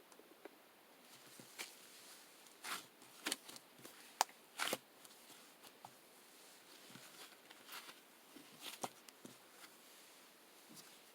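Scattered soft clicks and brief rustling, like small objects being handled, with the loudest clicks a few seconds in and again near the end.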